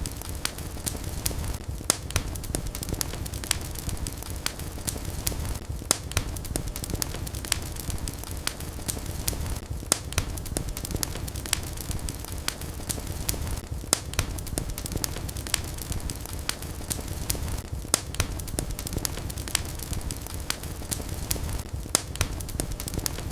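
Fire crackling in a fireplace: frequent sharp crackles and several louder pops every couple of seconds over a steady low rumble of flames.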